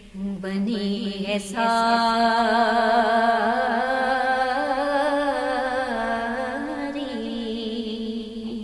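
A woman singing a naat, a devotional Urdu song in praise of the Prophet. A few short notes come first, then about a second and a half in she holds one long wavering note, with a steady lower tone beneath it.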